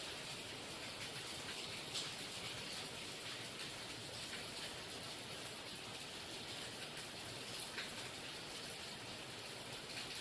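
Steady rain falling, an even hiss with a few louder drop hits standing out, one about two seconds in and another later on.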